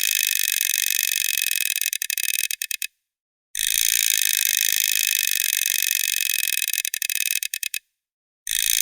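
Plastic chattering teeth clattering rapidly in runs of about four seconds. Each run breaks into a few separate clicks and stops. One run ends about three seconds in, a second starts about half a second later and stops near the eight-second mark, and a third begins near the end.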